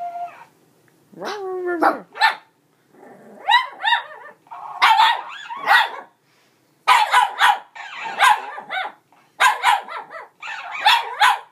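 Shih Tzu puppy play-barking and growling at a toy: a yelp about a second in, then volleys of short, sharp barks with brief pauses between them.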